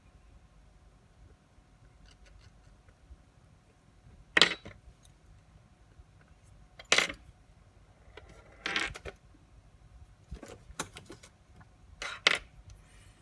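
Small metal watch parts and watchmaker's tools clinking against a hard bench surface or tray. There are about five sharp metallic clinks a couple of seconds apart, the loudest about four seconds in, with lighter ticks between them.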